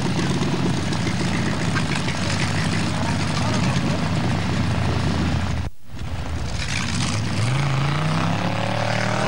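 Off-road competition buggy's engine running hard at high revs as it climbs a steep sand hill. There is a brief break in the sound about six seconds in, then the engine revs rise in pitch and hold high.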